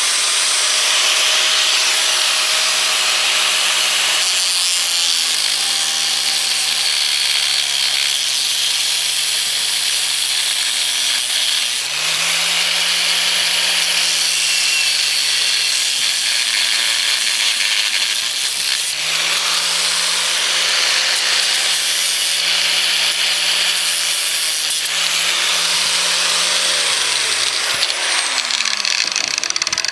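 A power tool cutting through a steel chain, running steadily with a hissing, grinding noise. Its motor pitch dips and recovers several times as the cut loads it.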